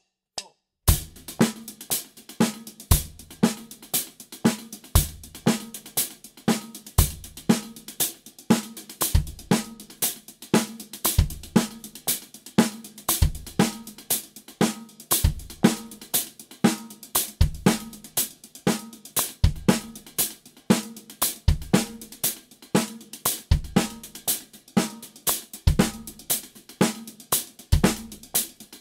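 Drum kit playing steady hand-to-hand sixteenth notes on the hi-hat and snare, with accented snare backbeats on 2 and 4 and a single bass drum note each measure, in an even repeating groove starting about a second in.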